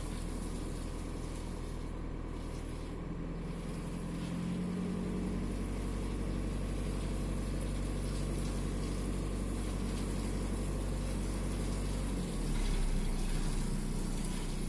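VW 1.9 TDI (AXR) four-cylinder turbodiesel running steadily at low revs. Its note shifts about four seconds in and grows a little louder near the end. The engine shakes from an intermittent misfire on cylinder 4, logged as fault 16688 / P0304.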